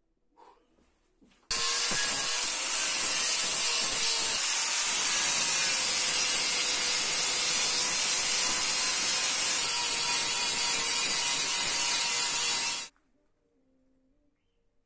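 Power tool running steadily under load on metalwork, a dense hiss strong in the highs with a faint steady whine through it. It starts abruptly about a second and a half in and cuts off abruptly near the end.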